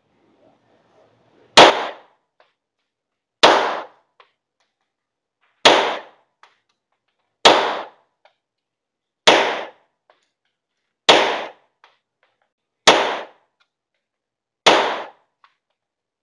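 HS-9 9mm semi-automatic pistol fired eight times at a slow, even pace, about one shot every two seconds, each sharp report trailing off in a short echo.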